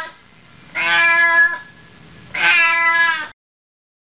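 A cat meowing: the tail of one meow, then two long meows of steady pitch, about a second each.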